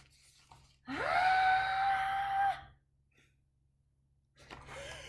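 A person's acted wail: the voice rises sharply, then holds one high, steady note for about a second and a half, like a storybook character crying. A shorter, lower, wavering cry follows near the end.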